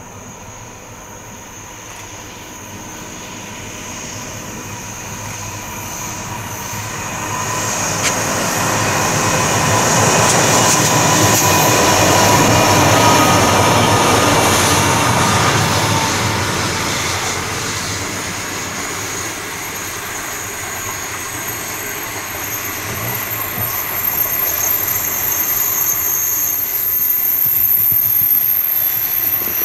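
A passenger train hauled by NR class diesel-electric locomotives approaches and passes, growing louder to a peak about halfway through. Then the long rake of stainless-steel carriages rolls by on a curve, with steady high-pitched squealing from the wheels on the curve.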